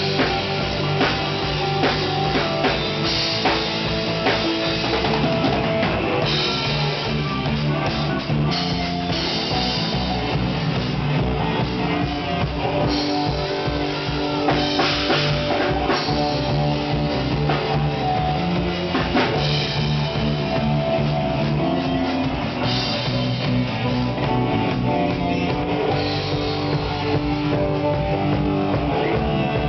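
Live band playing rock-style worship music during a sound check, led by a drum kit and guitar, running steadily without a break.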